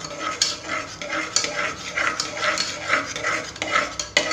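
Metal spoon stirring and scraping melting sugar around the bottom of a pressure cooker in quick repeated strokes, about two or three a second, as the sugar is dry-melted into caramel.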